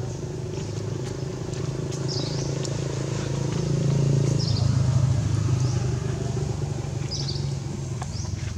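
Low, steady hum of a motor vehicle engine running nearby. It swells about four seconds in and then eases off, with short high chirps every second or two.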